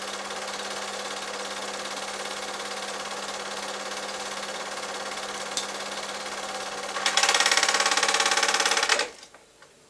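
Film projector mechanism running with a steady whir and hum. About seven seconds in it turns louder with a fast rattle, then stops suddenly about two seconds later.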